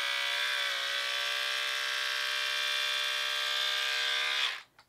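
Cordless electric split end trimmer running with a steady motor whine. Its pitch sags briefly about half a second in, and it is switched off abruptly near the end.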